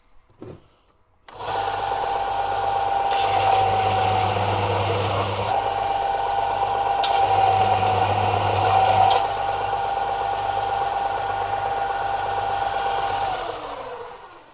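Bench sander switched on and running, with a metal strip pressed against it twice for about two seconds each to take the burrs off freshly drilled holes. It is then switched off and winds down near the end.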